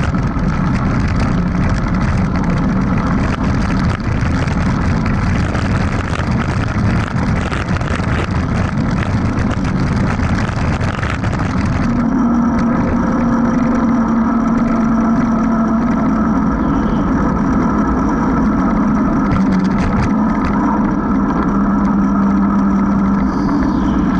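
Mountain bike riding fast downhill, with wind rushing over the action camera's microphone and the tyres rolling. For the first half the tyres are on a dirt road and the noise is rough, with many small rattles. About halfway through they go onto asphalt: the hiss drops away and a steady tyre hum takes over.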